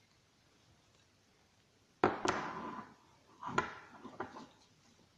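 Knocks and rattles of small metal parts on a wooden tabletop: one sharp knock about two seconds in, then a cluster of lighter knocks a second and a half later, as the distributor's sensor assembly and wiring are set down and the aluminium distributor housing is handled.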